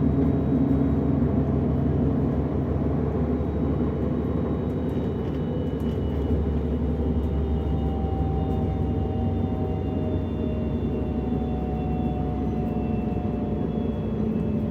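Cabin running noise of a DB Class 425 electric multiple unit under way: a steady low rumble with a faint whine that slowly falls in pitch.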